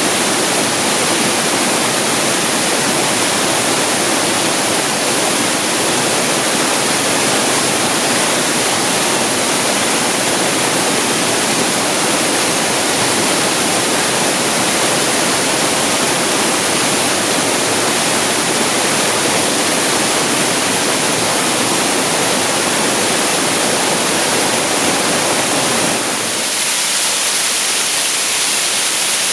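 Waterfall: a steady, loud rush of falling water. About 26 seconds in, the sound abruptly loses its low rumble and turns thinner and hissier.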